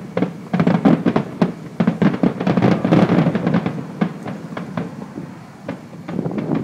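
Fireworks going off in a rapid, irregular string of bangs and crackles, densest in the first few seconds and thinning out toward the end.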